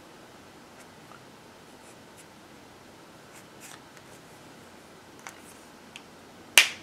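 Copic marker tip stroking faintly across sketchbook paper in a few short scratches, then one sharp click near the end.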